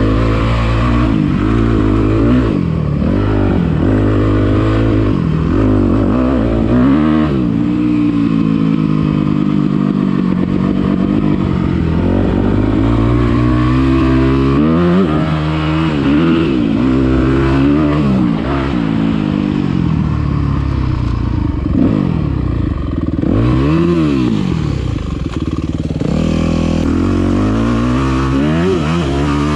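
Dirt bike engine being ridden hard, its pitch rising and falling again and again as the throttle opens and closes and the gears change.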